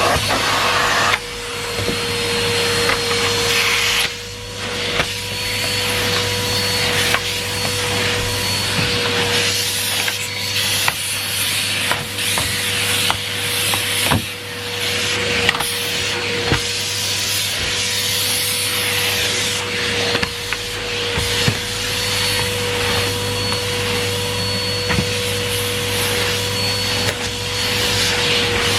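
Numatic Henry Pet cylinder vacuum cleaner running steadily with a constant whine and rushing suction. The loudness dips briefly a few times, and the floor tool rubs and knocks now and then against the floor.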